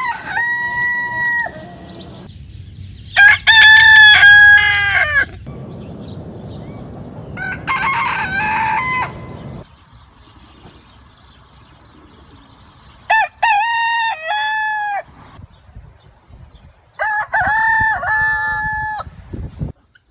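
A rooster crowing about five times, each crow a drawn-out call of about two seconds that rises, holds and falls, with the second crow the loudest.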